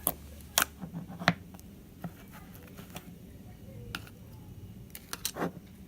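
Slime being handled by hand, giving scattered sharp clicks and pops, with a cluster of them near the end.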